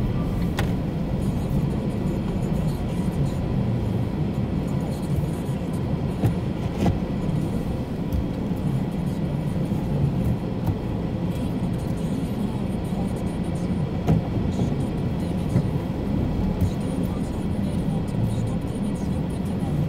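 Car driving slowly over a brick-paved street, heard from inside the cabin: a steady low rumble of engine and tyres on the bricks.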